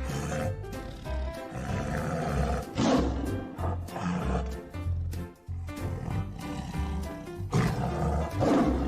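Tiger roaring a few times over background music with a steady beat.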